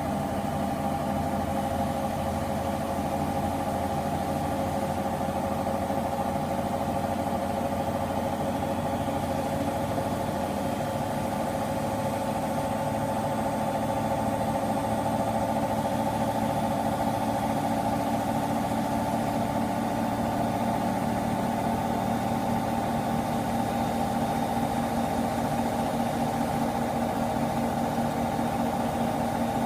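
Washing machine on its spin cycle: a steady motor hum with several whining tones held at a constant pitch, unbroken throughout.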